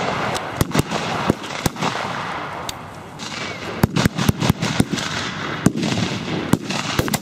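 Small-arms gunfire with blank rounds: rifle shots cracking irregularly, with a quick run of several shots about four seconds in.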